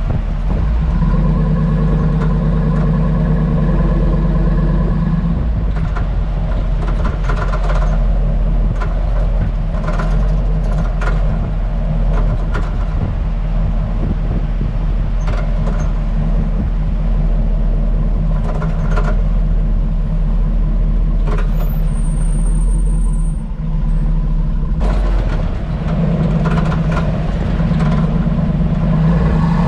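Hummer H2 driving slowly, heard from under the body. There is a steady engine and road drone, with irregular sharp clicks and knocks from the rear end every second or so. This is the cracking rattle from the rear suspension whose cause the owner and his mechanic have not found, even after new springs, shocks, spring seats and sway bar bushings and links.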